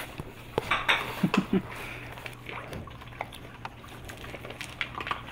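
Several Rottweiler puppies eating dry kibble off a tile floor: irregular crunching and sharp clicks of pellets being chewed and scattered.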